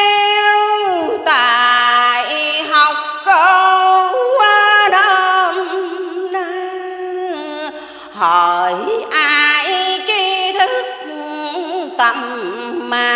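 A woman chanting Vietnamese verse in the melismatic ngâm style, unaccompanied, into a microphone. She holds long, ornamented notes with vibrato and sliding pitch, pausing briefly for breath twice.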